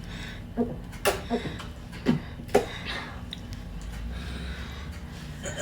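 Several short gulps, about four or five, spread over the first three seconds as soda is chugged from a bottle. A low steady hum lies underneath.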